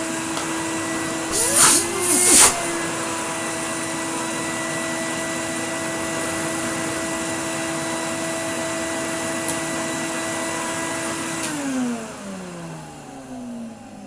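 1988 Numatic Henry HVR200 vacuum cleaner motor running steadily on newly fitted carbon brushes, with two loud rushes of air about a second and a half and two seconds in. About eleven and a half seconds in it is switched off and winds down with a falling hum; the owner takes the wind-down noise as a sign that its new motor bearings are good.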